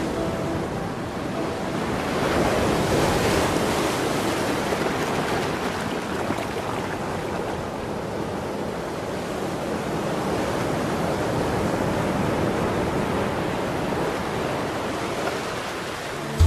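Steady rushing noise like surf washing on a shore, swelling about two seconds in and then easing to an even level.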